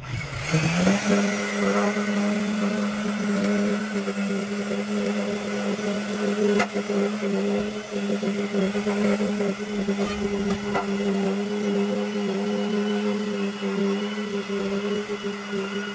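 Electric string trimmer motor spinning up over about a second, then running steadily at one even pitch, with a single sharp tick about halfway through.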